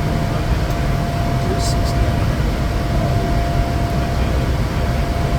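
Steady jet noise of a Bombardier Challenger 350's twin turbofan engines: a deep rumble and hiss with a thin steady whine running through it.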